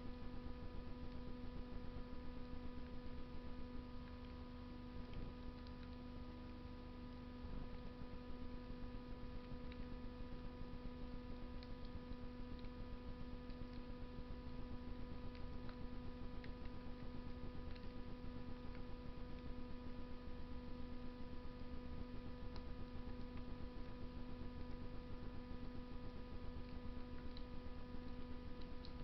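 Wood fire burning in a Russian masonry stove, with faint scattered crackles and pops over a steady electrical hum.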